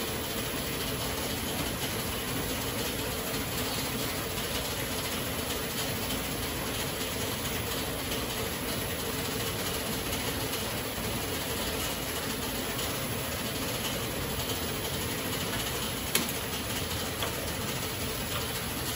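Automatic silk-reeling machine running steadily, a continuous mechanical noise with a faint steady hum and one sharp click about sixteen seconds in.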